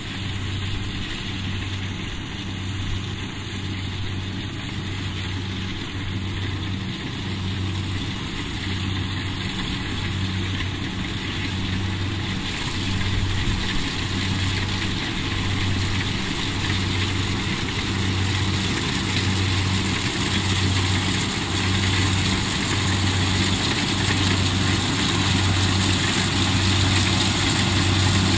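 Kubota combine harvester running while cutting rice: a steady engine and machinery din with a low throb pulsing about once a second, growing gradually louder as the machine approaches.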